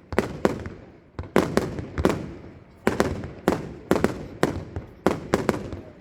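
Fireworks bursting overhead in a rapid, irregular string of sharp bangs, several a second, each trailing off in a rumbling echo.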